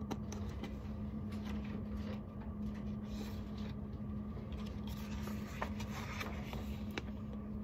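A steady low hum in the room, with scattered soft clicks and a brief paper rustle about three seconds in as a picture book's page is turned.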